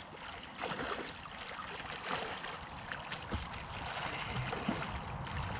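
River water gently lapping and trickling, with a few small splashes.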